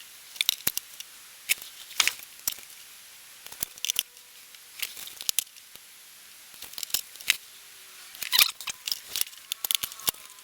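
Irregular small clicks and taps of hands working a hot glue gun and pressing LEDs onto the back of a mirror's glass, with a brief cluster of sharper clicks about eight seconds in.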